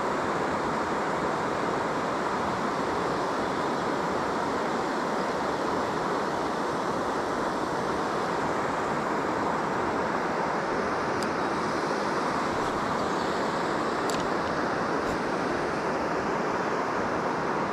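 Steady rushing outdoor noise at an even level, with a few faint clicks about two thirds of the way through.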